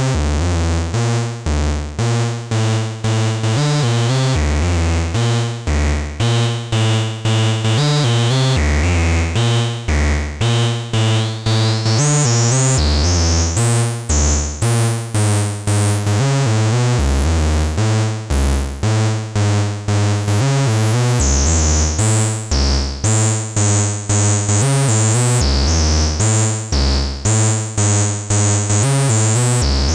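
Eowave Orage analog complex oscillator, synced from a second Orage module, playing a repeating sequence of short bass notes. Its bright upper tones sweep up and down, rising strongly in the middle.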